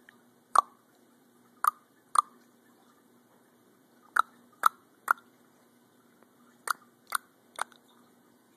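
An adult making playful mouth clicks to amuse a baby: nine sharp pops, first one alone, then a pair, then two quick runs of three.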